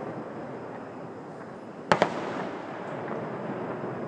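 Distant fireworks: a sharp double bang of an aerial shell bursting about two seconds in, over a steady low rumble, with the report rolling on afterwards as it echoes off the surrounding hillsides.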